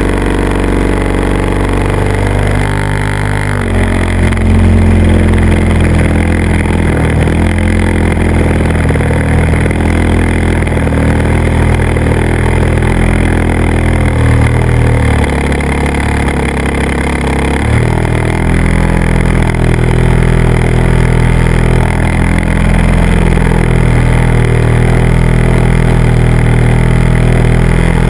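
Motor and propeller of a model aircraft running close to the camera, its pitch and loudness shifting with the throttle: up about three seconds in, down briefly around the middle, then up again.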